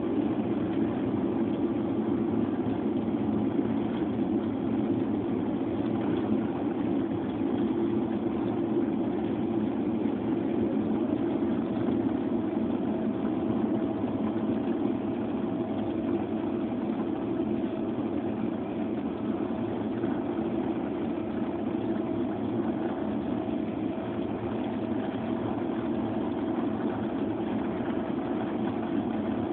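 Boeing 777-300 airliner's engines and airflow heard from inside the cabin over the wing: a steady rumble and hiss as the aircraft moves on the ground. A faint steady whine joins about eleven seconds in.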